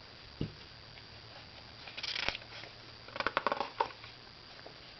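Paper catalog pages being handled and turned: a soft knock about half a second in, a short rustle around two seconds in, then a quick cluster of crinkling paper crackles.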